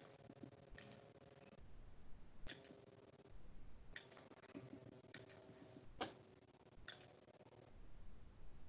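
Computer mouse clicking quietly about seven times at uneven intervals, several of them as a quick double tick, over a faint steady hum.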